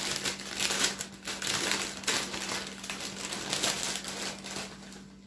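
Plastic bag of spinach crinkling and rustling as hands dig the leaves out, with irregular crackles that die down near the end.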